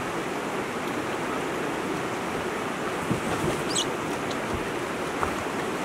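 White-water river rapids rushing steadily, with one brief high chirp about three and a half seconds in.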